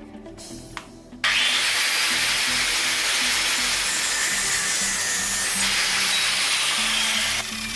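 Large angle grinder cutting into a steel square tube held in a vise: a loud, steady grinding hiss starts abruptly about a second in. It eases off near the end, when the disc comes off the metal.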